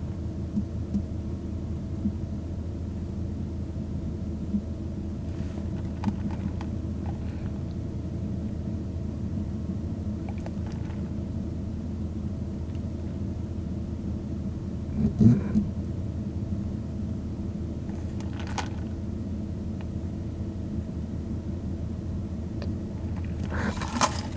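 Steady low hum and rumble inside a car's cabin with the engine running, with a few faint clicks and a short louder knock about fifteen seconds in.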